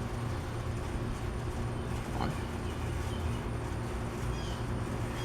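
Steady low rumble of background road traffic, with a few faint high chirps and a short rising squeak about two seconds in.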